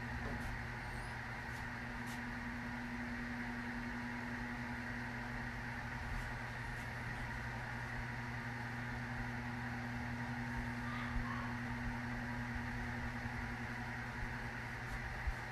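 Steady car cabin noise while driving: engine hum and tyre and road noise, with a constant low drone.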